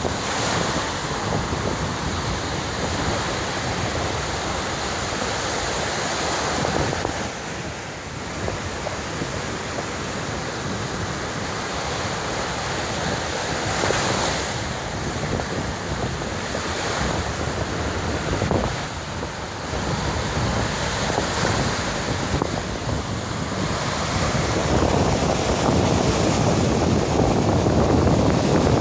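Large ocean waves breaking and surging onto a beach, a continuous rushing roar that swells and ebbs, with wind buffeting the microphone.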